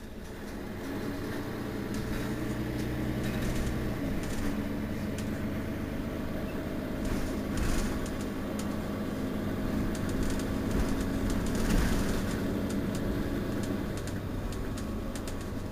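Mercedes-Benz Citaro facelift city bus's rear-mounted diesel engine idling with the bus standing still, a steady hum whose tone shifts about four seconds in. A few brief knocks or clicks stand out, the loudest near the end.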